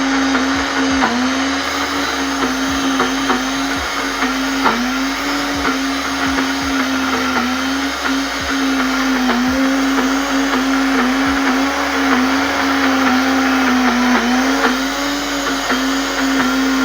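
SilverCrest countertop blender motor running continuously under load, grinding roasted peanuts that are already turning to a paste. Its pitch wavers and sags slightly as the thick mix loads the blades, with occasional light knocks.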